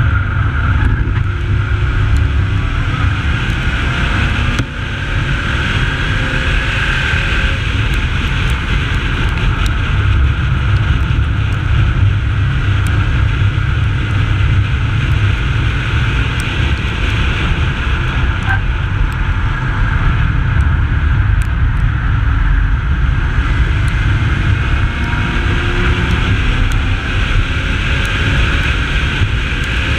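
Holden VY Commodore's 3.8-litre V6 running hard on a race circuit, its pitch drifting up and down gently with throttle and gear changes. It is heard under heavy rumbling wind and tyre noise on an exposed, low-mounted microphone.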